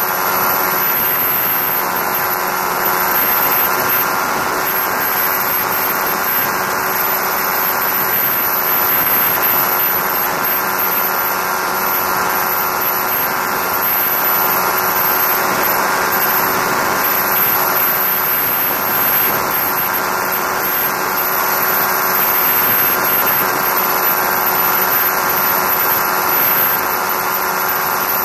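Quad City Challenger II ultralight's engine and propeller droning steadily in level cruise, mixed with wind rushing over the wing-mounted camera, and a thin high whine.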